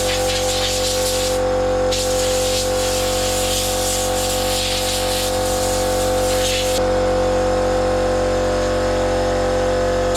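Angle grinder fitted with a wire brush running at speed and scrubbing rust off a steel spark-guard mesh. The motor's steady high whine carries under the scratching of the brush on the metal. The scratching lightens about a second and a half in and again after about seven seconds, and the grinder cuts off at the very end.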